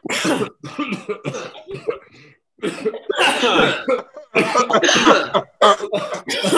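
People coughing over and over in a dense run of short, loud coughs and hacks with brief gaps between them.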